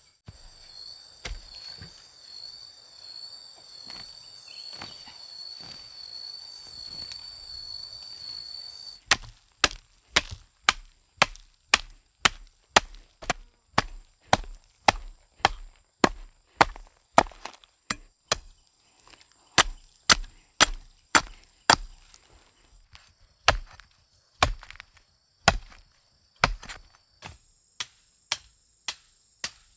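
Repeated chopping blows, about two a second and then more irregular, starting about nine seconds in. Before them a steady high insect buzz, a cicada or cricket, runs alone.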